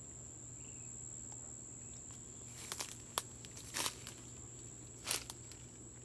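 Footsteps crunching and crackling through dry leaves and undergrowth, a handful of sharp steps between about two and a half and five seconds in, over a steady high-pitched insect trill.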